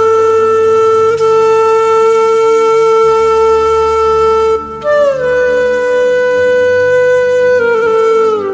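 Background music: a woodwind plays long held notes, sliding down to a new note about halfway and again near the end, over soft low sustained notes.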